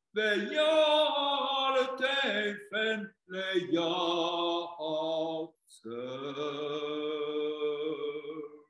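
A cantor's solo unaccompanied voice chanting Jewish liturgy (hazzanut). He sings a run of phrases with short breaks, then one long held note near the end.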